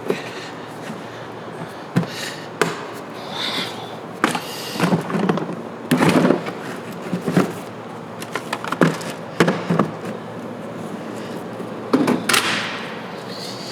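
Irregular clicks, knocks and clunks of hand tools and a hard plastic tool-kit case being handled, with a few short scrapes.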